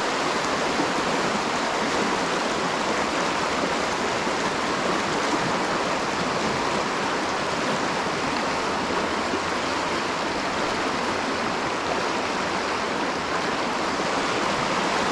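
Fast-flowing stream water rushing over rocks in a steady, unbroken rush.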